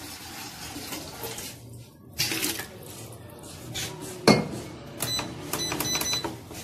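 Water poured from a plastic bottle into a stainless-steel mixing bowl, stopping about two seconds in. A sharp knock comes about four seconds in, then a quick run of short beeps as the digital scale's keypad is pressed and it resets to zero.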